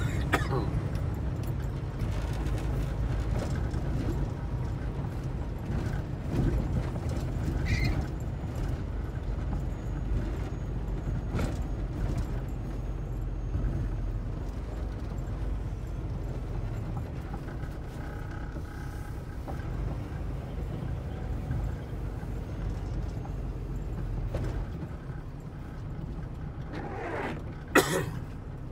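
Diesel semi-truck engine running low and steady, heard from inside the cab while the truck rolls slowly. A short sharp burst of air-brake hiss comes near the end.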